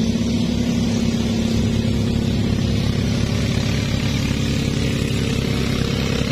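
Small engine running steadily at an even speed, loud and close, with a fast regular pulsing.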